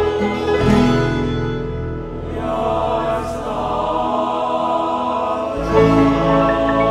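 Live Latin American folk music: acoustic guitar, tiple and bombo drum over bass, joined by a choir singing held, wordless chords.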